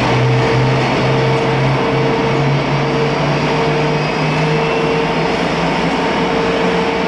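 Twin General Electric F414 turbofan engines of parked Boeing EA-18G Growlers running at ground idle: a loud, steady jet noise with a low hum that slowly rises in pitch over the first few seconds.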